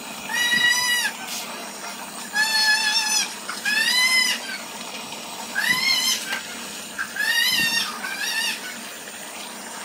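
An animal calling over and over: about six high-pitched calls, each under a second long, some of them wavering in pitch.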